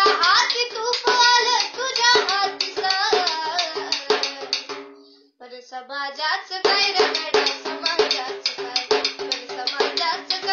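A young girl singing a Marathi song while beating a small hand-held frame drum, its strokes marking a steady rhythm under her voice. Both pause briefly about five seconds in, then start again.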